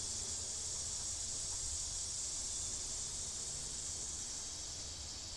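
Steady high-pitched background hiss with no other event.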